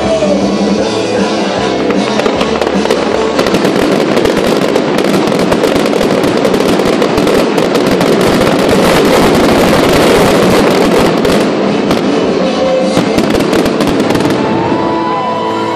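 Fireworks going off in a dense barrage: continuous rapid crackling and popping with many overlapping bangs, swelling loudest around the middle before easing off near the end.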